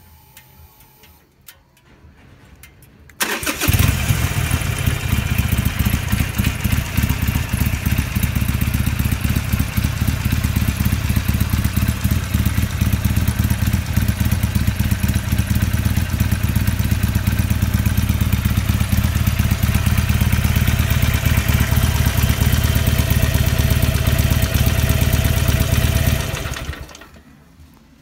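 Harley-Davidson Sportster 883's air-cooled V-twin with stock exhaust starting about three seconds in, then idling steadily, and shut off near the end.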